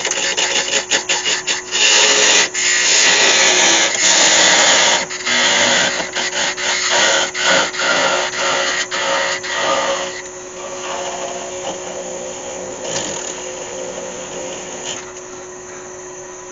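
Parting tool cutting into a spinning Iroko workpiece on a wood lathe: a loud scraping cut, broken into many short strokes, over the steady hum of the lathe. About ten seconds in the cutting stops and the lathe runs on more quietly.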